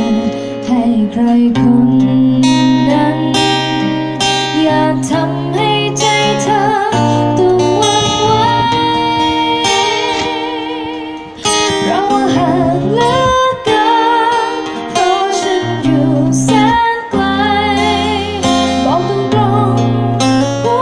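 Live band music: a strummed acoustic guitar with a singer singing into a microphone over a steady bass line, some held notes wavering in vibrato.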